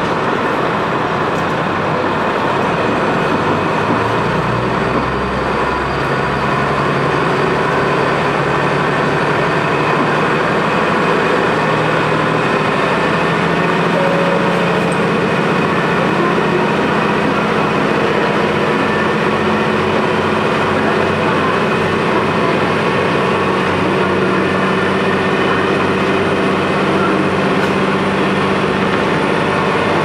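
Engine of a KiHa 200 diesel railcar pulling under power, heard from inside the cabin over the rail and running noise. Its drone climbs in pitch in a few steps in the first half, then holds steady as the train gathers speed.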